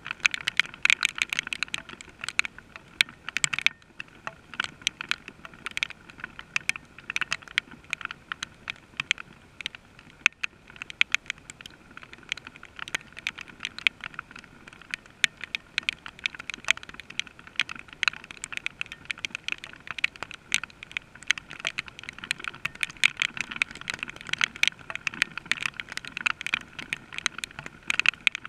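Rain falling, its drops striking a hard surface close by in a dense, irregular run of sharp ticks.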